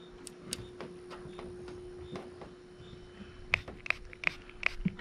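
Pump spray bottle of crab-scent fish attractant squirted onto a shrimp lure: a quick run of about five short sprays starting three and a half seconds in, over a steady low hum.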